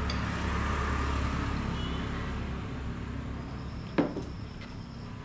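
A road vehicle's rumble slowly fading as it passes, with a single sharp knock about four seconds in.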